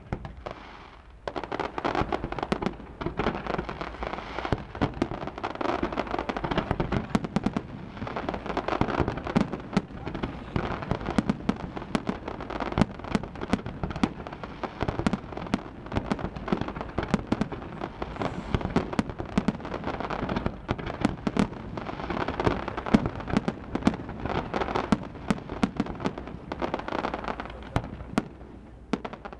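Fireworks display: a dense, continuous barrage of rapid bangs and crackling reports. It starts about a second in and keeps up without a break almost to the end.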